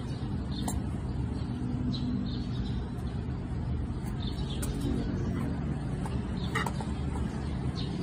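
Steady low background rumble, with a few faint, short, sharp sounds scattered through it.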